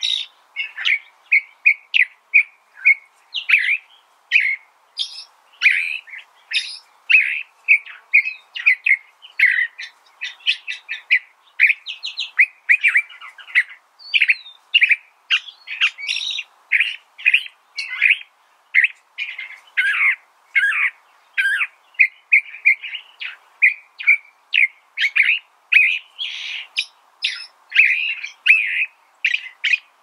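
California thrasher singing: a long, unbroken run of short, varied notes and phrases, several a second.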